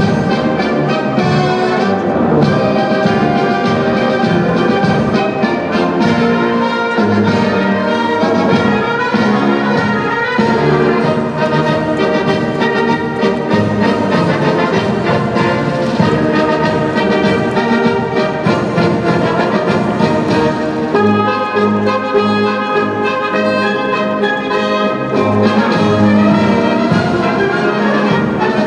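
Orchestral music led by brass, trumpets and trombones, playing continuously, with a pulsing low line in the last several seconds.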